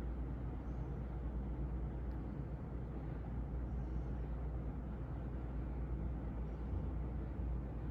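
CEC Georgian 36-inch ceiling fan, model 303D, running steadily: an even low hum with air noise from its four spinning blades.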